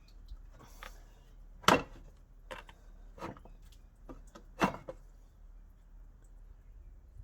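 A few knocks and clunks as a VN Commodore's radiator is worked loose and lifted out, knocking against the fan shroud and mounts. The loudest knock comes under two seconds in and another near five seconds.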